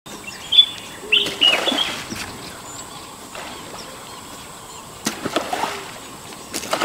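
Small birds chirping in short calls early on, and about five seconds in a brief splash of water as a fish swirls at the surface.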